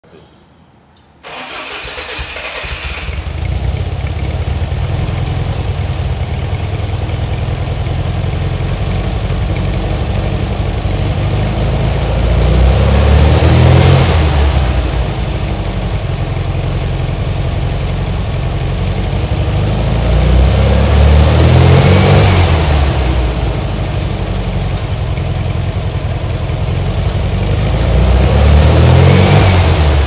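Air-cooled VW flat-four engine with twin carburettors, breathing through a stainless steel SS143 Super Sport muffler with twin tailpipes, starting about a second in and settling into an idle. It is then revved up and back down three times, each rise lasting a couple of seconds.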